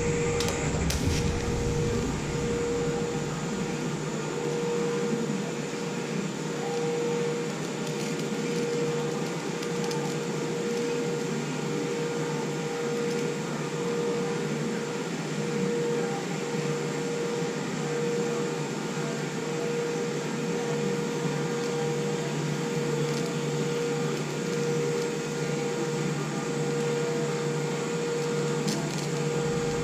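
Scratch-start TIG arc welding 16-gauge stainless steel at about 35 amps: a few sharp clicks as the arc is struck, then a steady hiss with a buzzing tone that swells and fades about once a second.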